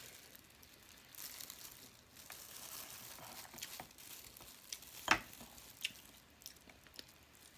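Faint eating sounds close to the microphone: soft chewing and crackly mouth noises with small scattered clicks, and one sharper knock about five seconds in.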